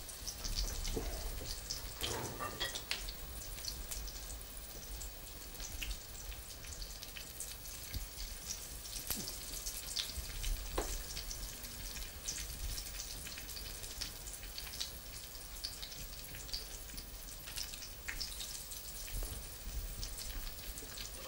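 Batter-dipped courgette flowers frying in hot oil: a steady sizzle with many small crackles.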